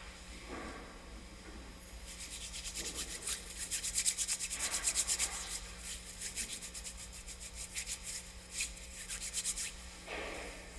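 Hands rubbing together briskly, working in hand sanitizer: a fast, even run of dry swishing strokes lasting several seconds, loudest in the middle and tailing off near the end.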